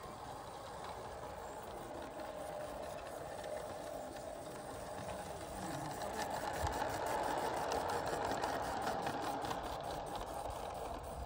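G-gauge model train running on garden railway track, a steady mechanical running and rattle that grows louder about halfway through as it comes close, with a rapid, even clicking while it is nearest.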